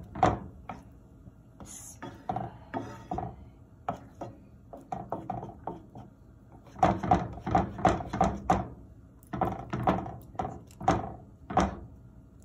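A slotted spatula knocking and pressing against a frying pan as an egg omelette is worked. The knocks are scattered at first, then come in a quick run of about four a second in the second half.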